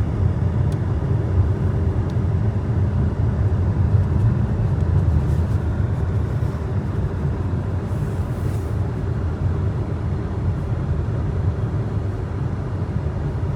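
Two-wheel-drive car driving on a snow-covered road: a steady low rumble of engine and tyre noise.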